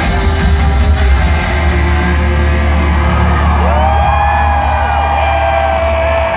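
Live rock band playing loud through a concert PA, with a heavy, steady low end; about three and a half seconds in, a long held note with pitch bends rises over the band.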